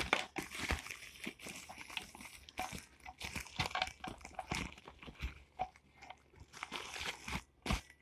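Plastic packaging crinkling and rustling as it is handled, with a few sharper knocks as the charger inside is moved.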